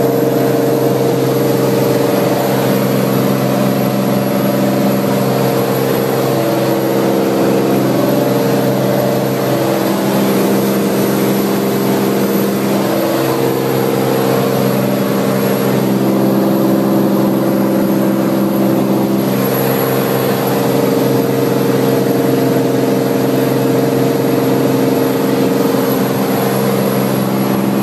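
Cirrus SR20's single piston engine and propeller droning steadily, the note wavering slightly about a third of the way in.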